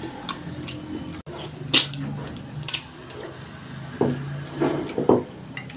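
Close-up wet mouth sounds of a person eating fish and a starchy paste by hand: irregular chewing, lip smacks and sharp clicks, with a few fuller smacking bursts about four to five seconds in.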